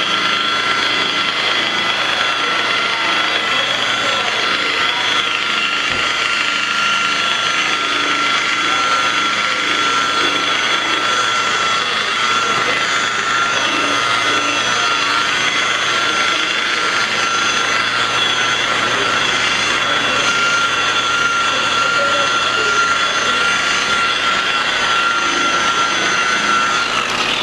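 Electric power buffer running steadily with a high whine, buffing a plastic headlight lens; near the end its pitch starts to fall as it winds down.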